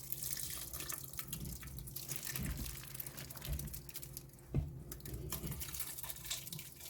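Ground gombo-baechu (Salvia plebeia) juice being poured onto rice in a pot, dripping and splashing irregularly, with a single thump about four and a half seconds in.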